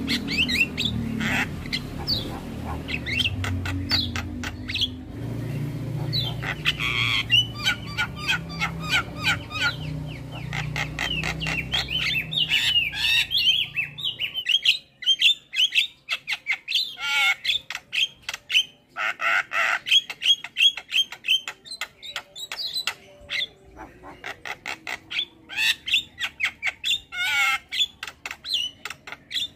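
Starlings of the jalak family (myna-type birds) singing in a dense chatter of rapid clicks, harsh squawks and chirps. A low rumble sits underneath for about the first half and then stops.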